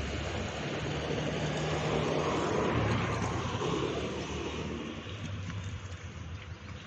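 Motor vehicle engine and road noise, a steady rumble that swells about two to three seconds in and eases off near the end.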